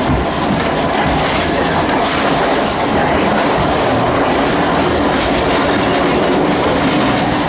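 London Underground A Stock electric train running at speed, heard from aboard: a steady, loud rumble of wheels on rail with occasional faint clicks from the track.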